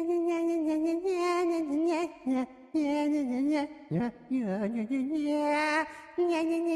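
A single voice singing a wordless, wavering tune in long held notes, with a few short breaks between phrases.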